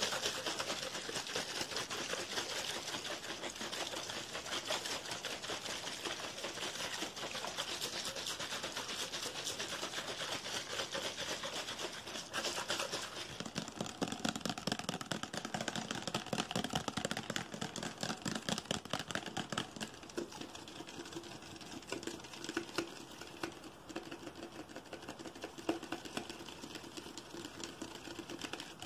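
Fast fingertip and fingernail tapping and scratching on crinkly plastic close to the microphone: a dense, even stream of small clicks. About halfway through it changes to tapping and scratching on a clear bottle, with a fuller, lower sound.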